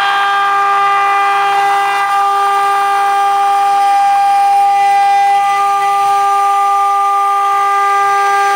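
CNC router spindle running and cutting through sheet material: a steady high whine with a hiss of cutting noise over it. The hiss is strongest in the first couple of seconds.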